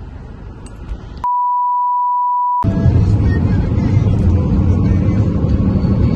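A single steady beep tone lasting about a second and a half, the kind of bleep an editor lays over a cut-out word; all other sound drops out while it plays. Low rumbling background noise runs before it and comes back louder after it.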